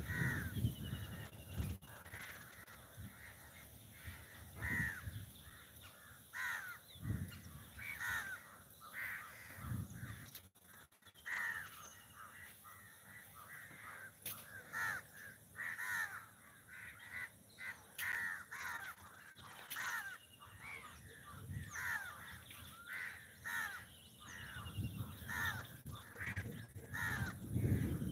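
Crows cawing over and over, with the caws coming irregularly every second or two, and a few brief low thumps.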